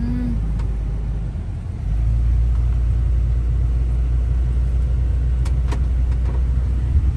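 Steady low rumble of a vehicle on the move, engine and road noise as heard from inside the cabin. It grows louder about two seconds in.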